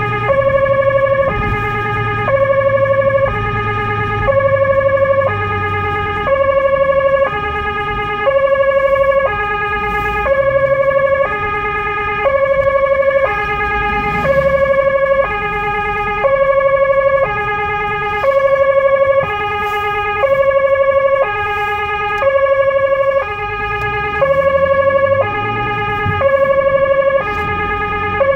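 Two-tone emergency-vehicle siren, heard from inside the car's cabin. It switches back and forth between a higher and a lower tone, each held for about a second, in a steady, unbroken cycle.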